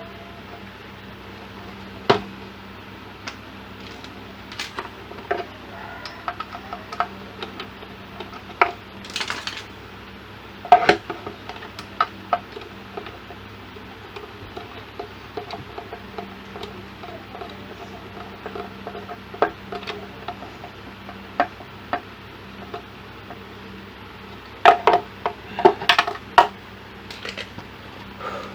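Small metal tools clinking and tapping, in scattered sharp clicks with a cluster near the end, as an electronics circuit board is worked on, over a steady faint low hum.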